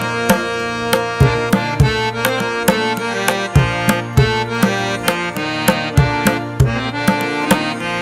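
Instrumental background music: regular drum strokes over a held melody.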